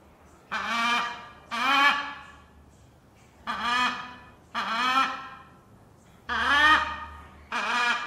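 A parrot squawking: six calls, each under a second and coming in rough pairs, each starting suddenly and tailing off.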